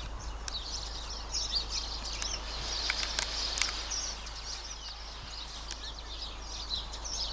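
Small birds chirping and twittering, many quick high calls overlapping.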